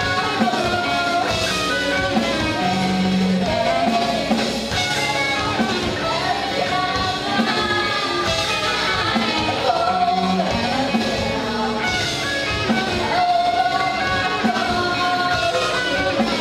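Live rock band: a female lead vocal sung into a microphone over electric guitars and a drum kit.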